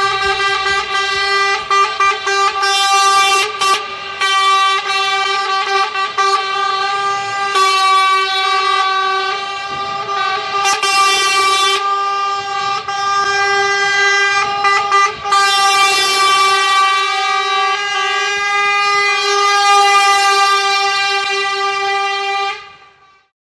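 Truck air horn held down in one long steady blast, with rushes of hiss now and then, fading out near the end.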